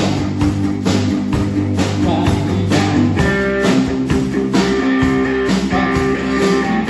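A rock band playing live: electric bass, a Telecaster-style electric guitar through an amp, and a drum kit keeping a steady beat.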